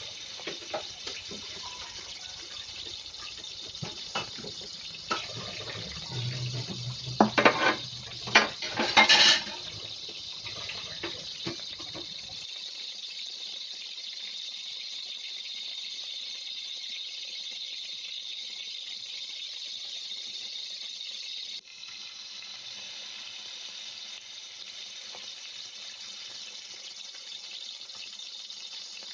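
Beaten eggs sizzling in a hot frying pan as an omelette cooks: a steady hiss. Between about seven and ten seconds in, a short run of loud clatters and scrapes.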